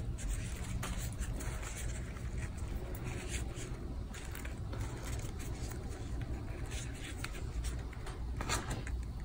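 Grosgrain ribbon rustling and scraping in the fingers as a strip is wrapped around the centre of a hair bow, in short scratchy strokes scattered through, over a steady low background hum.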